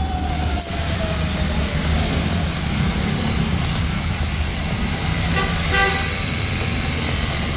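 Street traffic with the steady hiss of a cordless pressure wash gun spraying water, and a car horn sounding briefly about five and a half seconds in.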